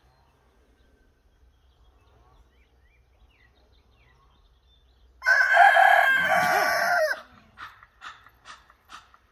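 Rooster crowing once: a single loud crow of about two seconds, starting about five seconds in after a quiet stretch.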